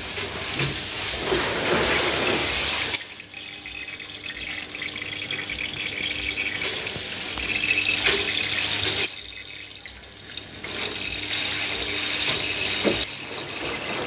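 LG front-loading washing machine running with water rushing in, a steady hiss that cuts off sharply about three seconds in and again about nine seconds in, each time building back up, with a faint hum underneath.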